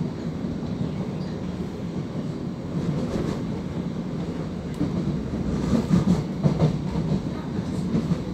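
Running noise inside the carriage of an electric multiple-unit train travelling at speed: a steady low rumble of wheels on rail, with a few louder knocks between about five and seven seconds in.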